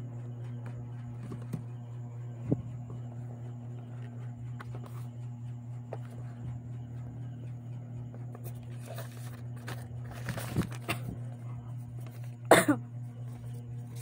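Cardboard phone box and paper packaging being handled: a few light taps, a stretch of rustling about ten seconds in, and a loud short rustle near the end, over a steady low hum.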